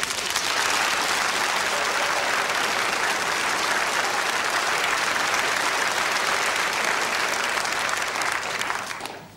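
Studio audience applauding, steady and loud, then dying away near the end.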